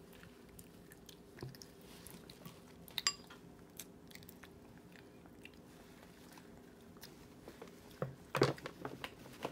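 A baby chewing a mouthful of food: faint chewing and mouth sounds with a few soft clicks, and a louder cluster of short mouth sounds about eight seconds in.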